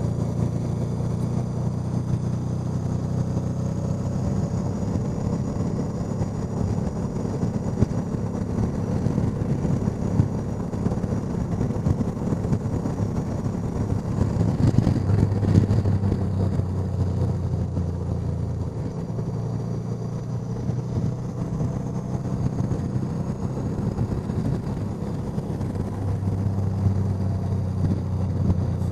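Honda Deauville NT650V's V-twin engine running on the move, under heavy wind rush on the helmet microphone. The engine note shifts a few times as the revs change.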